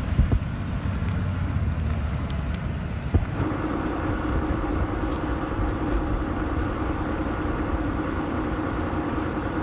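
A vehicle running, with a steady low rumble; about three seconds in, a steady engine hum with a few pitched tones sets in and holds.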